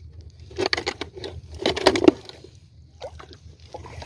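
Plastic water bottle crackling and tapping as it is handled against the hand net's frame, in two short bursts of quick taps about a second apart, the second louder.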